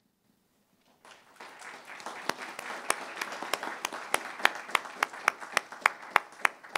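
Applause starting about a second in, with one close clapper's sharp claps standing out at about three a second.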